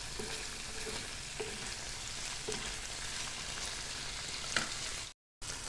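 Chicken liver pieces sizzling steadily as they fry in oil in a kadai, stirred with a spoon. A sharp clink comes about four and a half seconds in, and the sound cuts out for a moment just before the end.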